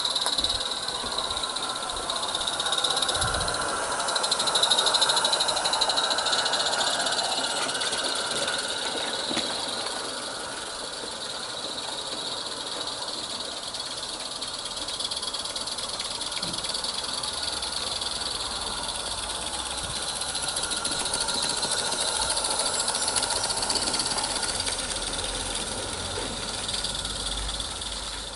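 Roundhouse live steam garden-railway locomotive running, with a steady hiss of steam that is louder in the first few seconds.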